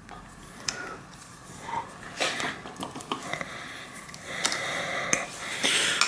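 Faint clicks and metallic ticks as a hex wrench unscrews a bicycle brake's mounting bolt from the fork, followed near the end by a longer stretch of scraping and rustling as the brake arm is handled and pulled off.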